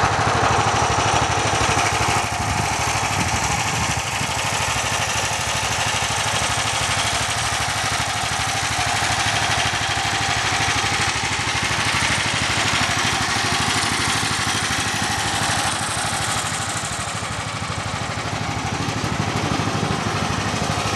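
An engine running steadily at idle, with an even hiss over it.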